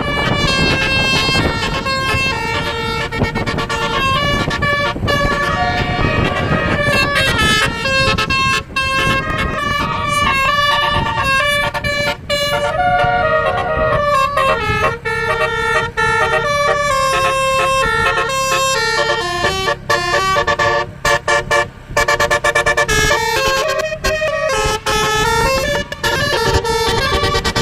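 Tour bus telolet horn: a multi-tone air horn playing quick melodic tunes, note after note, over the low rumble of the bus. The horn breaks off briefly a few times near twenty to twenty-two seconds in.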